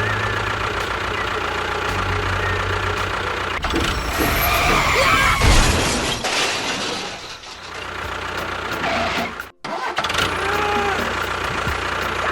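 A small motor of a DIY miniature tractor running with a steady hum, cutting out for a moment about two-thirds of the way through.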